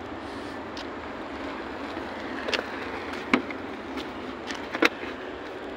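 Steady outdoor background hiss, with a few sharp clicks and knocks in the second half as hands work at a car door's plastic interior trim panel.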